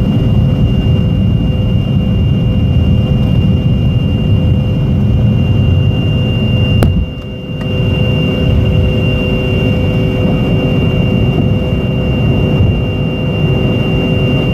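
Fokker 70's Rolls-Royce Tay turbofan engines at take-off power, a loud steady rumble with a steady whine over it. There is a click and a brief drop in level about seven seconds in.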